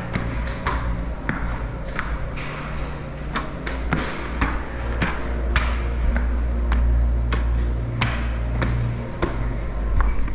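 Irregular sharp knocks, about two a second, echoing in a large cave chamber over a low steady drone.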